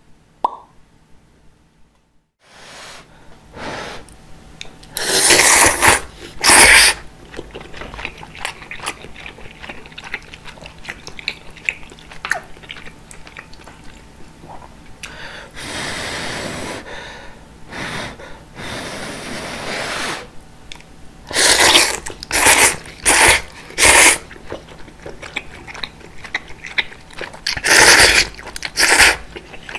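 Close-miked eating of udon noodles in broth: several loud slurps of thick noodles, with chewing between them. It starts after a couple of quiet seconds.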